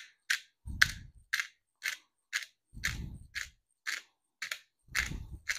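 Hand-twisted black pepper grinder cracking peppercorns, a steady run of sharp clicks about twice a second with a duller crunch under some of them.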